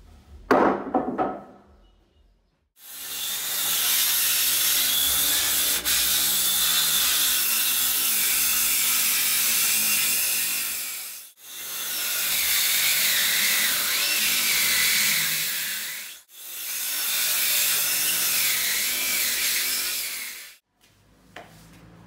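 A heavy reclaimed wood plank knocks down on the floor about a second in. Then a handheld circular saw runs, cutting through thick reclaimed wood planks in three long passes, each swelling in and dying away, with the motor's whine wavering under the load.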